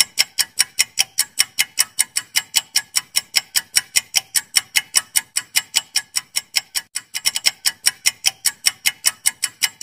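Quiz countdown-timer sound effect: rapid, evenly spaced clock ticks, about five a second, with a brief stumble in the rhythm about seven seconds in. The ticking marks the time allowed for answering.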